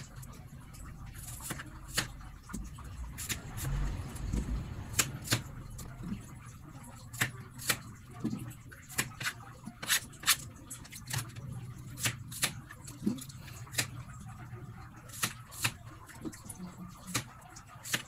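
Chef's knife slicing through small kamias (bilimbi) fruits and striking a plastic cutting board: a string of sharp, irregular knocks, about one or two a second.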